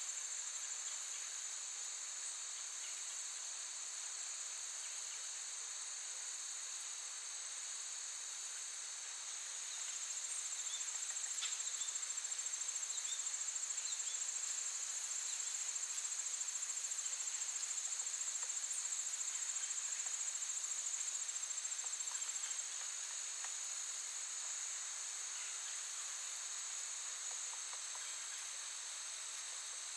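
Steady high-pitched chorus of insects, such as crickets, in a natural ambience. It grows louder and more finely pulsing for about twelve seconds in the middle before it drops back.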